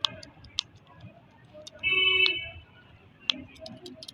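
Toy sounds: a few sharp clicks, and about two seconds in a short, high tone lasting under a second, the loudest sound.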